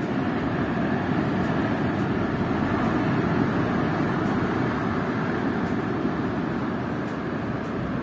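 Heavy surf breaking on a rocky shore: a steady, dense rush of waves with no clear gaps between them.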